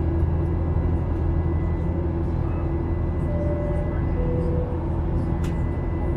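Steady drone of a Boeing 737-800's engines and rushing air heard inside the passenger cabin during the climb. About halfway through come two short tones, the second lower than the first.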